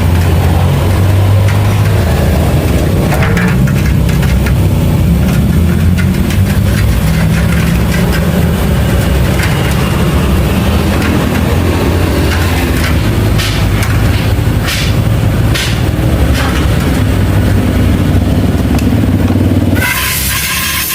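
Small motorcycle engine running steadily, with a few sharp clicks and knocks over it; the sound cuts off abruptly about twenty seconds in.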